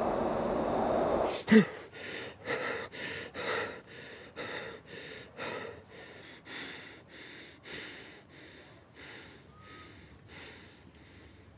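A low rumbling drone cuts off suddenly about a second in. A man then gives one sharp, loud gasp and goes on breathing hard and fast, about two breaths a second, the breaths gradually quietening.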